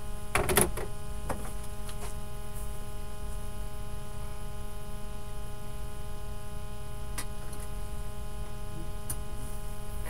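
Steady electrical mains hum with a buzzy stack of overtones, broken by a few light clicks and knocks, the loudest about half a second in.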